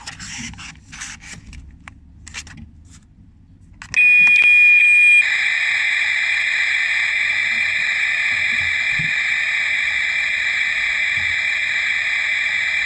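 Toy kitchen stove's electronic cooking sound from a small speaker: a loud steady high beep starts about four seconds in, and a second later a long hiss joins it, like boiling or sizzling, with the tone still underneath. Before it come a few seconds of faint clicks from plastic toys being handled.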